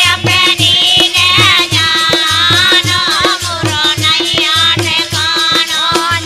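Indian folk music: a pitched, ornamented melody line over a steady, repeating hand-drum beat with sharp percussive strokes.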